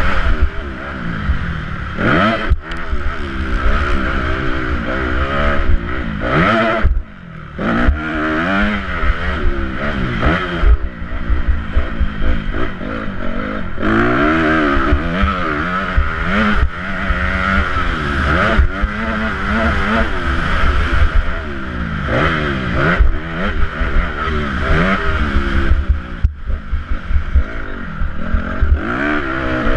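Motocross motorcycle engine at race pace, heard close from the rider's helmet, its pitch rising and falling again and again as the throttle opens and shuts and the gears change. About seven seconds in the engine note drops away briefly, then picks up again.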